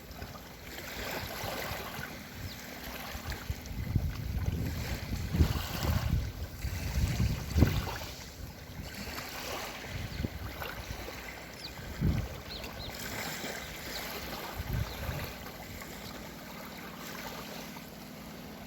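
Black Sea waves washing in, with wind buffeting the microphone in low rumbling gusts, strongest in the first half.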